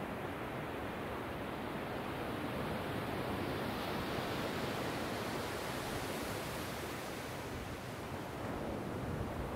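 Small ocean waves breaking and washing up a sandy beach: a steady rushing hiss of surf that swells a little in the middle.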